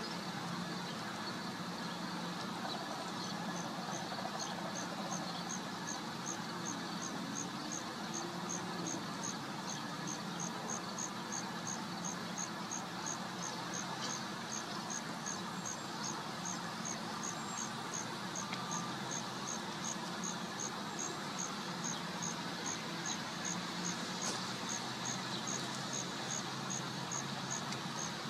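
Steady outdoor background noise with a low hum. From about three seconds in, a high, thin chirp repeats evenly about twice a second.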